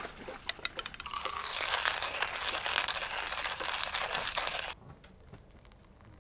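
Stainless-steel hand coffee grinder: a few light metal clinks, then about three and a half seconds of steady, crunchy grinding full of fine clicks, which stops abruptly.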